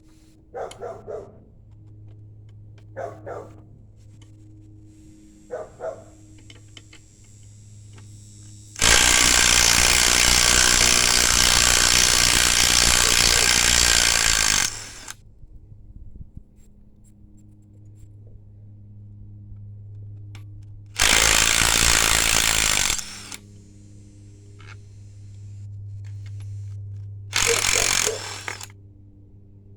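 A 3/8-inch impact wrench with a 10 mm deep socket running on the upper plenum bolts in three bursts: a long one of about six seconds, one of about two seconds and a short one near the end. A few light clicks and knocks come in the first seconds, over a steady low hum.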